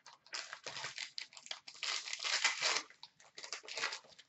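Wrapper of a 2019-20 Upper Deck Engrained hockey card pack being torn open and crinkled by hand: a run of crackling rustles, longest and loudest around the middle.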